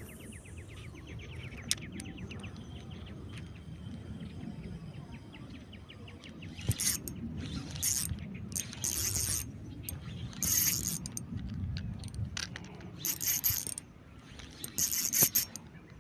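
Fishing reel working: a fast run of ratchet clicks at first, then about half a dozen short high buzzing bursts of line pulling off the drag.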